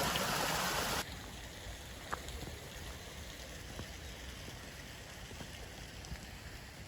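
Water spilling from a pond outflow into a small pool, a steady rushing hiss that cuts off suddenly about a second in. A fainter, even hiss follows, with a few soft ticks.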